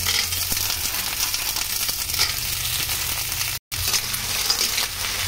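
Clams sizzling in a hot wok on sautéed ginger, onion and garlic as they are stirred with a metal spatula. The sizzle breaks off completely for a moment about three and a half seconds in.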